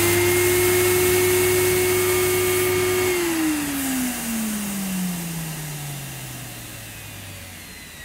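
Electrolux Elite Super Electronic vacuum cleaner motor running with a steady whine during a suction-gauge test. It is switched off about three seconds in, and the whine falls steadily in pitch and fades as the motor winds down.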